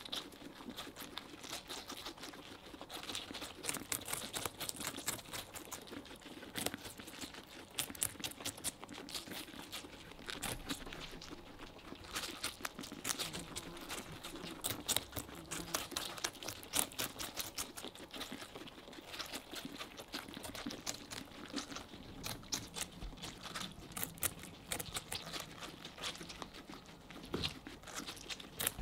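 Guinea pigs biting into and chewing watermelon flesh: a dense, irregular run of small wet crunching clicks.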